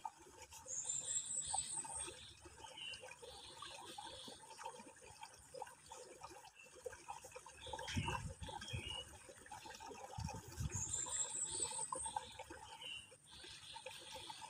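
Faint trickling, water-like ambience with scattered high chirps. A short rising high trill comes twice, about ten seconds apart.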